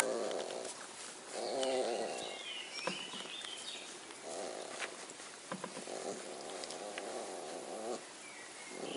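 Flat-coated retriever puppies grunting and snoring in bouts, each a low buzzing rumble lasting from half a second to about two seconds, with a faint thin whimper about two seconds in.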